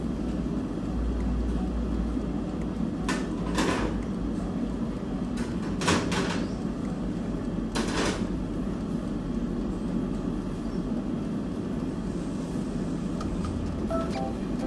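A few sharp metal clanks as the pan-support grates of a gas stovetop are handled and set back down while the hob is wiped, over a steady low hum.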